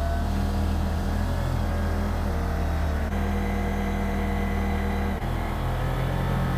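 Kubota tractor's diesel engine running steadily, its note shifting slightly a couple of times.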